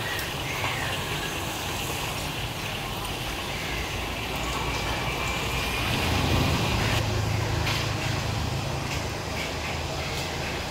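Road traffic running steadily, with a vehicle's engine hum growing louder about six seconds in.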